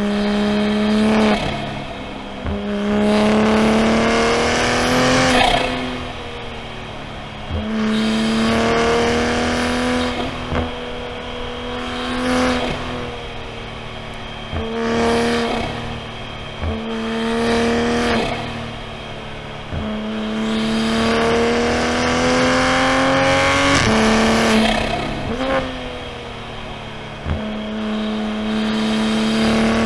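Toyota A90 Supra's B58 turbocharged 3.0-litre inline-six pulling through the gears in repeated moderate runs. The engine note climbs steadily for a few seconds, then drops back at each shift or lift-off, about eight times.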